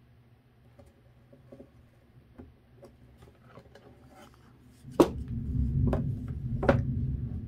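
Thumbtacks being pushed through needlepoint canvas into wooden stretcher bars, with hands handling the frame on a table: soft taps and clicks at first, then about five seconds in it gets louder, with three sharp clicks over a low handling rumble.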